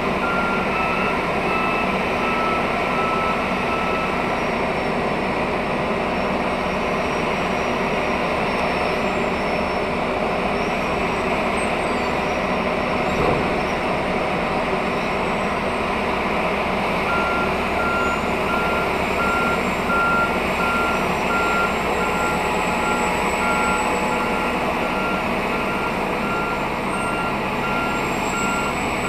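Semi truck's diesel engine idling steadily, heard from inside the cab, while a yard machine's backup alarm sounds a string of evenly spaced beeps, briefly at the start and again from a little past halfway on. A single knock lands about halfway through.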